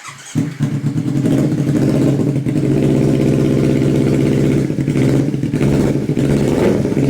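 Kawasaki Ninja 250 FI parallel-twin engine starting up and then running steadily: a test run of the freshly rebuilt engine after the cases were split to repair a gearbox that would not go into neutral.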